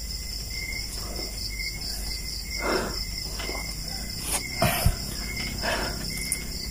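Crickets chirping steadily in a continuous night insect chorus. A few soft rustles and a light knock come about four and a half to five seconds in.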